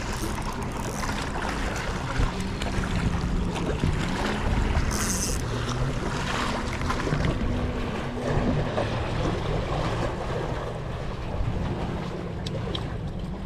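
Wind on the microphone over sea water, with a low wavering hum through the first half and a brief hiss about five seconds in.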